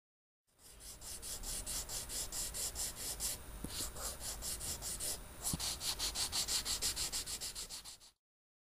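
Paintbrush strokes on canvas: quick back-and-forth rubbing at about five strokes a second. There are two brief breaks, a little past three seconds and just past five seconds, and the strokes stop suddenly near the end.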